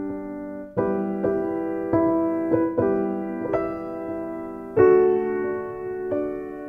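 Background piano music: slow, gentle notes and chords, each struck and left to ring.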